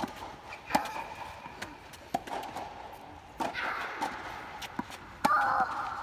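Green low-compression tennis ball being struck by rackets and bouncing on the court during a rally: a series of sharp knocks about a second apart, with shoes scuffing and sliding on the court surface.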